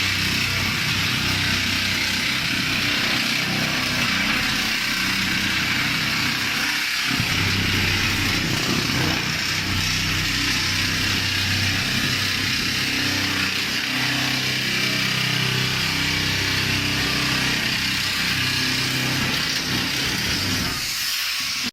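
A small engine running steadily under a strong hiss, its low pitch wavering a little, cutting off abruptly at the end.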